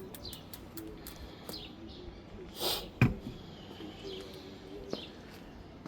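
Small birds chirping now and then in the background, short high chirps, with a brief rustle and a sharp knock about three seconds in.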